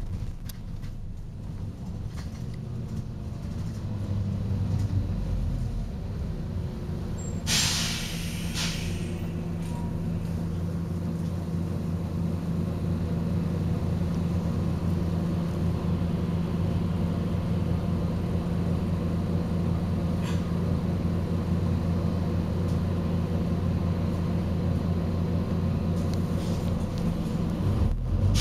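Volvo B9TL double-decker bus's six-cylinder diesel idling steadily, with one loud burst of compressed-air hiss from its air brake system lasting about a second, about seven seconds in, and another hiss starting right at the end.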